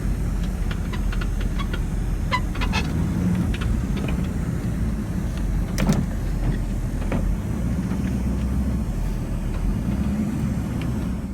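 Motor vehicle engine running steadily with a low rumble, with scattered light clicks and rattles on top.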